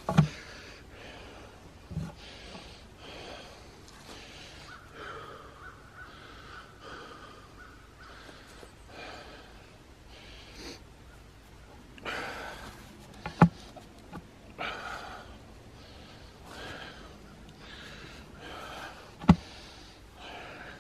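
A person breathing hard from exertion while setting a wooden fence post in a dug hole, punctuated by a few sharp thumps, the loudest just after the start, about two-thirds of the way through and near the end.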